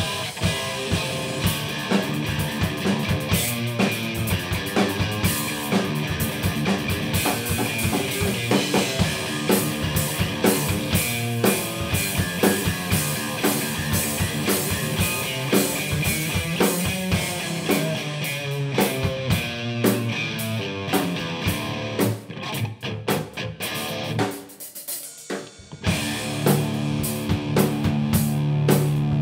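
Instrumental rock jam on guitar, bass guitar and drum kit, with a busy beat of drum hits. About three quarters of the way through, the band thins out to a few scattered hits for a few seconds, then comes back in together.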